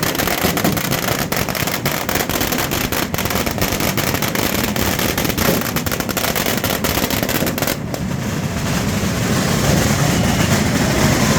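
A rapid, irregular string of firecracker bangs, many a second, that stops suddenly about two-thirds of the way through, leaving a steady din of crowd and street noise.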